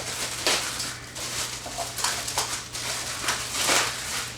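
Packing material rustling and crinkling as grill wheels are pulled from their box, in irregular swells, over a steady low hum.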